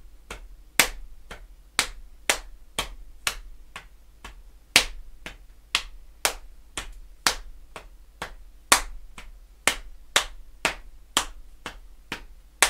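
Hand slaps on the legs playing a slow single paradiddle (right, left, right, right, left, right, left, left) as body percussion, one hand on the thigh and the other at the side of the knee. A steady rhythm of about two sharp slaps a second, some louder than others.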